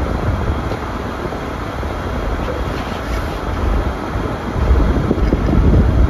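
Car cabin noise while driving on a snow-covered road: a steady low rumble from the engine and tyres. It grows louder about four and a half seconds in.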